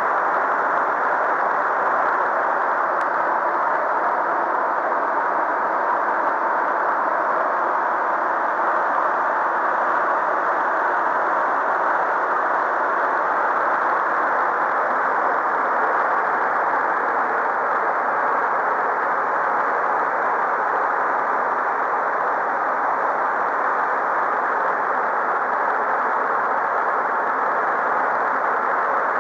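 The Sichon river in flood, swollen by rain and storms, rushing through churning white water in a steady, unbroken rush.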